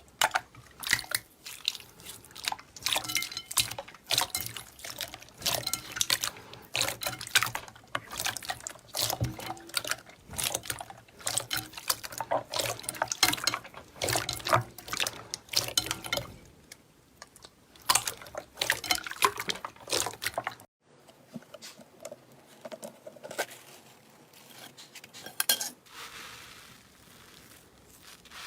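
Slime being squeezed and pressed by hand, making rapid wet clicks, pops and squelches. About two-thirds of the way through it cuts off abruptly and quieter squishing follows, with a soft hiss near the end.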